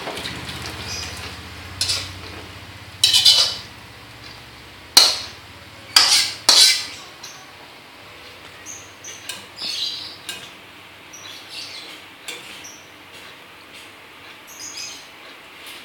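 Metal pots, pans and utensils being handled and set down: a few sharp clanks in the first seven seconds, then quieter clinks and scrapes.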